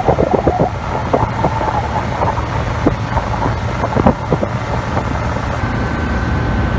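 Motorboat running on plane: a steady low drone of engine and rushing water, with wind buffeting the microphone.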